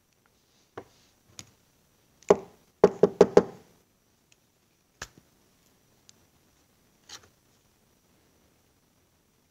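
Small metal hydraulic lifter parts being handled and set down on a workbench: scattered clicks and knocks, with a quick run of about five sharp knocks between two and three and a half seconds in.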